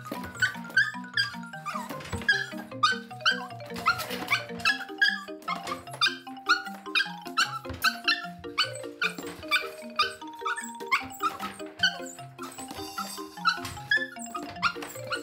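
Light background music with puppy sounds mixed in and many quick knocks, as a small puppy dashes back and forth in a wire cage.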